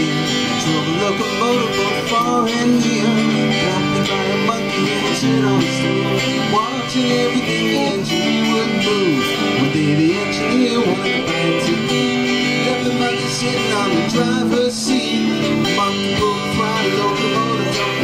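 Two acoustic guitars playing live together, strumming and picking an upbeat country-style tune.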